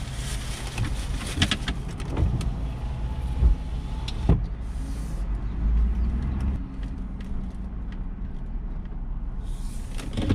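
Car interior while driving off: a steady low engine and road rumble, with the crackle and clicks of a takeout bag being handled in the first couple of seconds and a thump about four seconds in.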